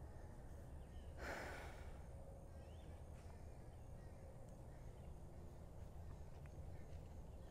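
Quiet outdoor ambience with faint bird chirps and a thin high insect tone; about a second in, a horse gives one short breathy snort.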